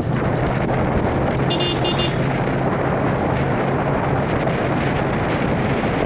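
Motor vehicle on the move along a paved road: a steady engine hum under dense road and wind noise, with two short horn beeps about a second and a half in.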